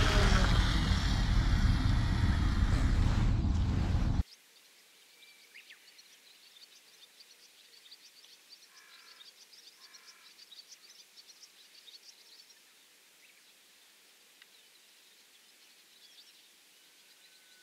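A loud rush of wind noise on the microphone for about four seconds, which cuts off suddenly to faint outdoor quiet. Faint bird chirps follow, with two short calls about a second apart near the middle.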